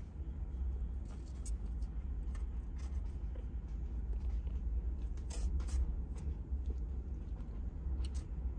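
Steady low rumble, with a few faint light clicks and soft rustles scattered through it.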